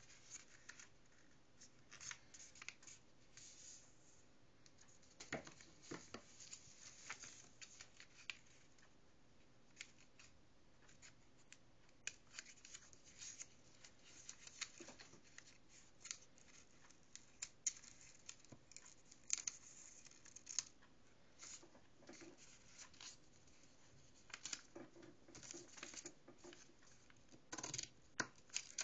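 Faint paper handling and scissors: a sheet of paper being folded and creased, and scissors snipping short cuts into it, heard as scattered brief rustles, clicks and snips.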